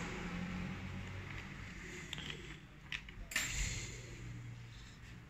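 A few light metallic clicks and clinks as small diesel injection pump parts are handled and fitted, over a faint low hum.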